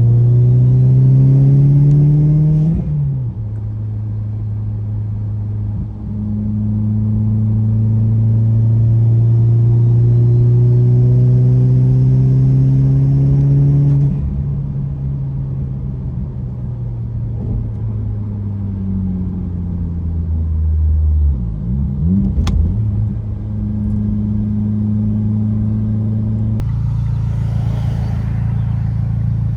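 Turbocharged 2008 Mitsubishi Lancer Evolution X engine under way, its pitch rising steadily as the car accelerates in gear. The pitch drops sharply at gear changes, about three seconds in and again near the middle, before it climbs again.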